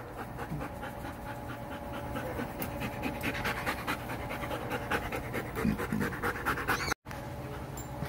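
Poodle panting rapidly and evenly, mouth open and tongue out. The sound cuts out for an instant about seven seconds in.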